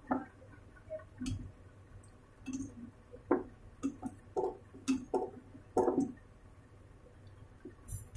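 Wooden spatula stirring chicken pieces and yogurt in a kadhai: irregular light knocks against the pan and soft wet squishes, about a dozen in eight seconds.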